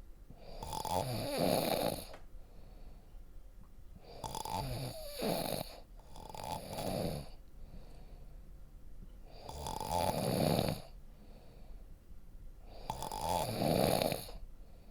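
Deep snoring of a sleeper: five slow snores, each about a second long, with quieter breathing in between; the second and third come close together.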